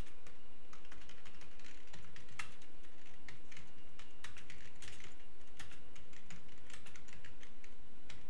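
Typing on a computer keyboard: an uneven run of quick keystrokes.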